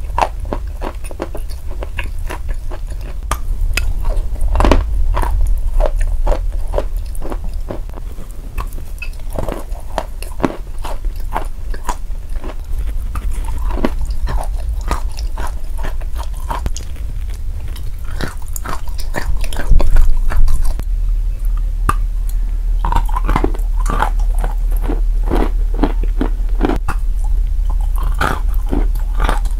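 Close-miked biting and chewing of chalk bars coated in clay paste: many crisp, irregular crunches as the chalk breaks and is ground between the teeth, over a steady low hum.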